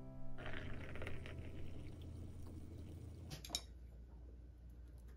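A drink is poured into a cup or glass for about three seconds, then a single sharp clink of tableware.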